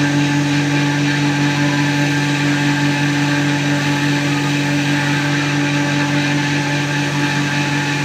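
Electric power tool motor running at a constant speed, a steady pitched whine over even hiss.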